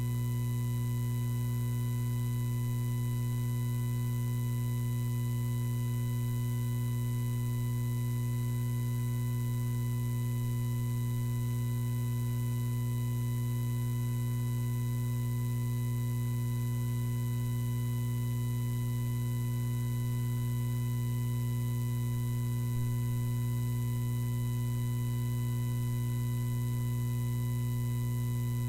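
Steady electrical hum in the audio feed, strongest low down, with fainter high steady tones above it, unchanging throughout. No voice comes through, though the preacher is at the microphone.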